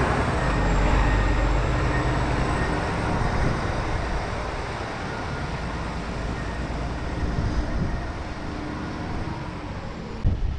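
Heavy diesel truck running: a steady low rumble with a broad hiss that gradually eases off.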